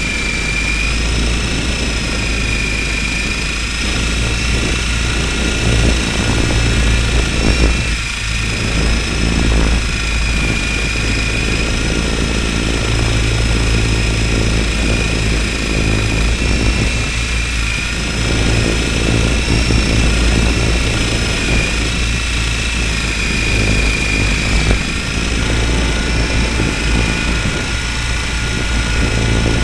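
Radio-controlled helicopter's motor and rotor, heard through a camera mounted on the helicopter itself: a steady high whine that wavers slightly in pitch, over a low rotor drone.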